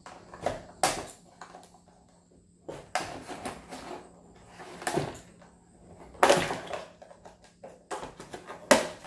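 Scissors snipping ties and cardboard packaging being handled: scattered short snips, scrapes and rustles, with two louder rustles in the second half.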